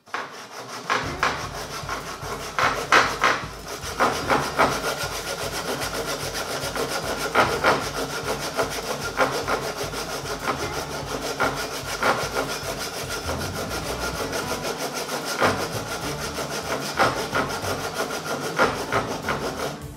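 Hand saw rip-cutting with the grain down into the top of a wooden hatchet handle held in a vise, in steady back-and-forth strokes: cutting the kerf for the wedge.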